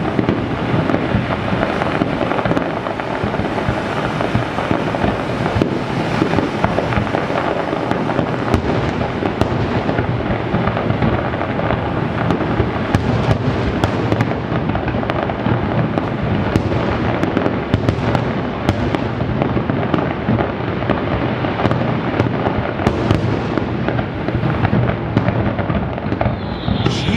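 Fireworks finale: a dense, continuous barrage of overlapping booms and crackling bursts with no pauses, echoing off the surrounding buildings.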